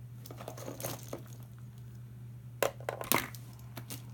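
Rustling and crinkling of the plastic wrapping in a box of small toys as it is rummaged through, with scattered sharp clicks of plastic toys being handled, two louder ones a little past halfway.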